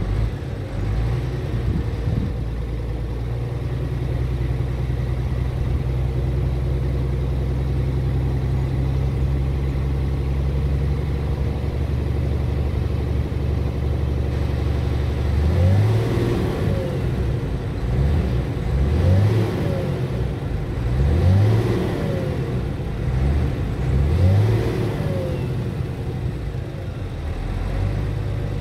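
Scania R tractor unit's diesel engine, heard from inside the cab, running steadily at a raised idle for about half the time. It is then revved up and let fall back in about five short blips before settling.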